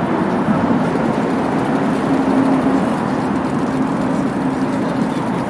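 Steady traffic and engine noise, with a low engine hum holding at one pitch for a second or so at a time.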